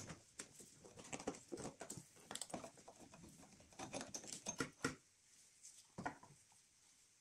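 Faint, quick clicks, scrapes and rustles of hand tools and gloved hands working on the EGR valve and hoses of a 1.9 TDI engine. The clicking thins out after about five seconds, with one more click about a second later.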